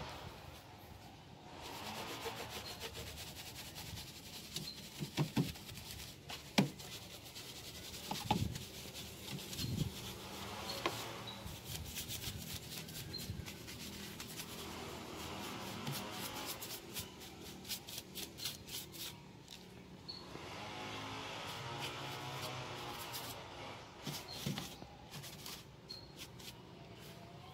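A soft bristle brush sweeping and rubbing over the plastic engine cover and parts of a car's engine bay, dusting them off in repeated passes, with a few light knocks in the first third.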